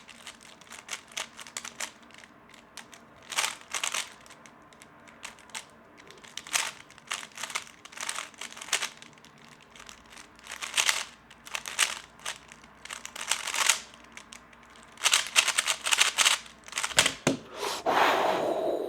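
3x3 Rubik's Cube being turned fast in a timed speedsolve: runs of quick plastic clicks and clacks with short pauses between them, and a denser run of turning near the end.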